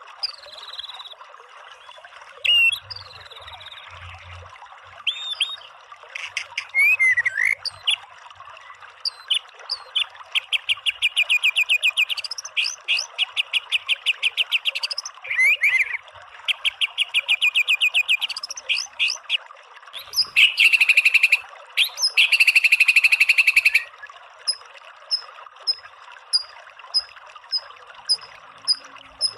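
White-rumped shama (murai batu) singing 'tembakan': fast trains of repeated notes in several runs through the middle, a dense, loud burst of song a few seconds from the end, then single high ticks about once a second, over a steady background hiss.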